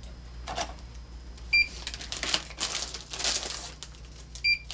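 Handheld barcode scanner at a checkout beeping twice, a short high beep about a second and a half in and another near the end. Between the beeps, rustling and handling noise as the items are picked up and scanned.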